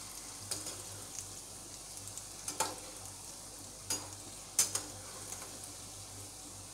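Batter-coated chickpeas deep-frying in hot oil with a steady sizzle, while a perforated steel skimmer stirs them and clinks against the pan about five times, most sharply a little past four and a half seconds in.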